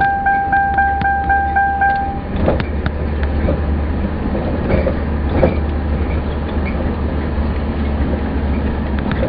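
Car driving slowly, heard from inside the cabin: a steady low rumble with a few scattered knocks and rattles. A rapidly repeating electronic chime, about four beeps a second at one pitch, cuts off about two seconds in.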